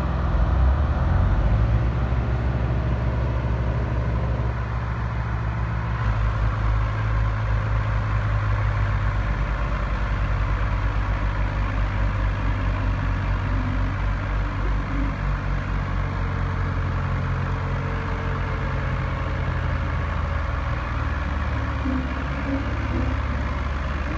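HMT tractor's diesel engine running steadily at low speed, with an even low pulse.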